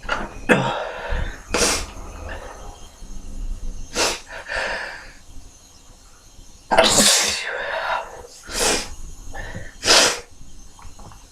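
A man sneezing over and over, about six sharp sneezes with breaths drawn in between them; the longest and loudest comes a little past halfway. The sneezes are induced by tickling inside the nose with a thin plastic cable casing.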